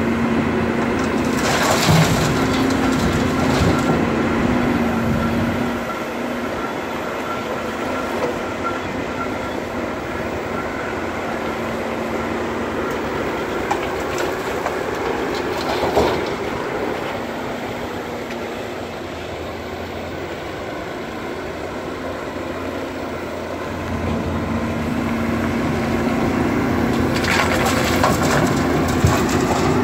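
Volvo EC210B crawler excavator's diesel engine running steadily, louder at the start and again near the end as it works under load. Crunching and clattering of rocks and soil being dug and dropped into a steel dump truck bed, about two seconds in, midway, and near the end.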